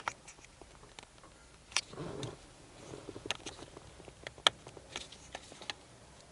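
Irregular small clicks and taps of plastic as hands work at a turn signal relay's wiring connector and locking clip, trying to free it, with a brief rustle about two seconds in.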